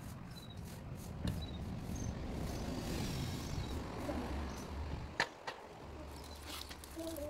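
Wet magnet-fishing rope being hauled in hand over hand from a canal, over a steady low rumble. Two sharp clicks come about five seconds in, a short moment apart.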